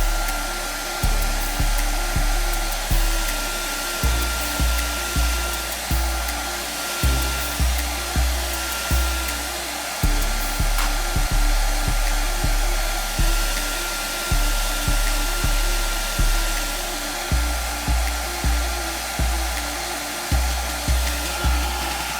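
Hair dryer blowing steadily, heating the phone's glass screen to loosen it for removal, with a faint steady whine. Background music with a pulsing bass line plays underneath.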